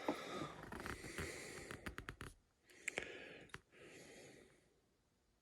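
Small handling noises on a workbench: light clicks and taps of small metal parts and tools with rustling between them. They fade out about four and a half seconds in, followed by silence.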